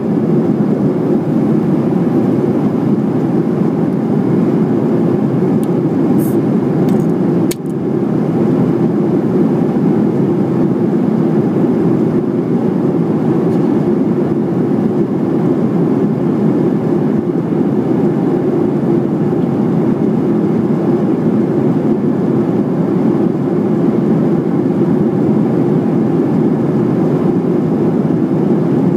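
Steady roar inside the cabin of a Boeing 737-700 in flight, from its CFM56-7B engines and the airflow past the fuselage. About seven and a half seconds in there is a single brief click.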